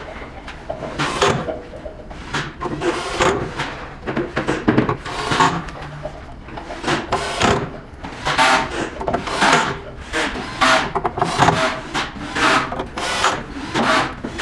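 Screws being driven into the edge of an inductor board with a screwdriver: repeated irregular short knocks, scrapes and clicks of the tool and screws against the board.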